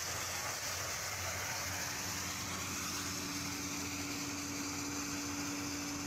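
Motor-driven pneumatic conveyor running, carrying rice husk through its duct and flexible hose: a steady rush of air over a low hum, with a steady tone coming in about two seconds in.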